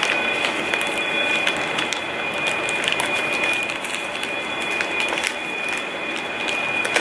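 Plastic ziplock bag and paper envelope rustling and crinkling in the hands, with many short irregular crackles, as the bagged swab sample is pushed into the envelope. A steady high-pitched whine sits underneath throughout.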